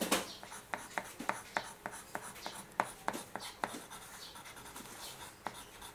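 Green colour pencil scratching on drawing paper in short, quick strokes, about three a second, as grass is shaded in.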